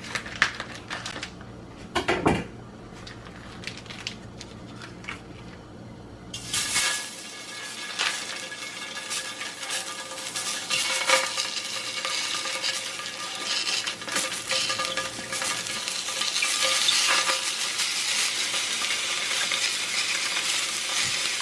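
A few utensil clinks and knocks on a pan, then, about seven seconds in, hot dogs start sizzling loudly in a hot frying pan, a steady spitting hiss that carries on to the end.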